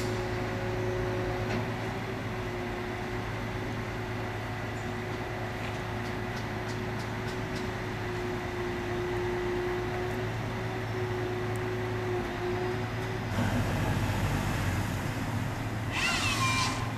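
Truck-mounted tree crane's engine and hydraulics running with a steady hum. About 13 seconds in, a louder rushing noise joins. Near the end comes a brief whine that falls in pitch as the grapple saw head works at the trunk.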